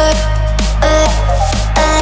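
Background electronic dance music with a heavy, steady bass and a regular beat.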